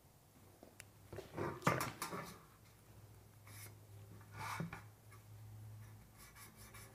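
Faint handling noises on sheet metal: a few light taps and short scrapes as a speed square is set against a Z closure and slid into place for marking, over a faint steady low hum.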